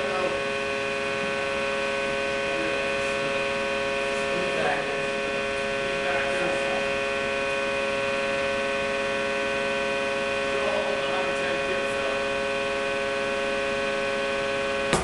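Hydraulic power unit of a large compression testing machine running with a steady, many-toned hum, cutting off suddenly at the very end.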